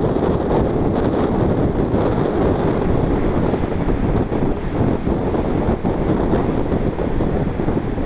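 Ocean waves washing ashore in a steady rush of surf, with wind buffeting the microphone.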